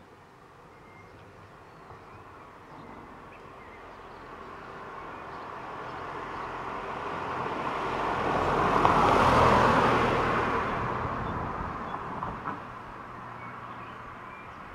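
A car driving past on an asphalt street. Its tyre and engine noise swells steadily as it approaches, is loudest about nine seconds in, then fades away.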